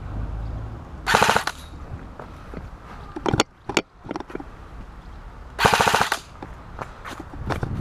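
E&C MK18 airsoft electric rifle (AEG) firing two short full-auto bursts, each about half a second of rapid, evenly spaced shots, about a second in and again at about five and a half seconds. A few single sharp clicks fall between the bursts.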